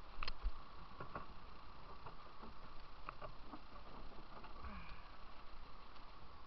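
Scattered light knocks and scrapes over a steady hiss: a plastic whitewater kayak and paddle being handled out of the water and set down on a bank.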